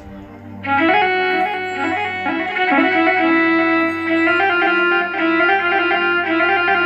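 Korg Triton keyboard playing a rababa (bowed Bedouin fiddle) voice in an Ataba-style melody: a quiet sustained drone, then a loud, ornamented line of held notes comes in under a second in and carries on.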